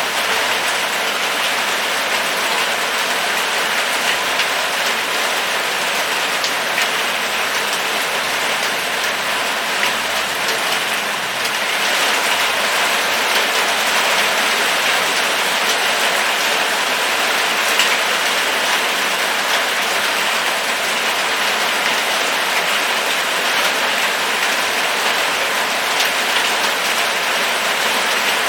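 Steady rain falling on surfaces, an even hiss dotted with the ticks of individual drops.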